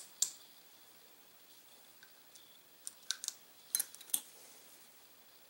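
Small sharp clicks from hex grip screws and a hex key being handled and fitted into a 1911 pistol's grip panels. One louder click comes just after the start, then a cluster of about five lighter clicks three to four seconds in.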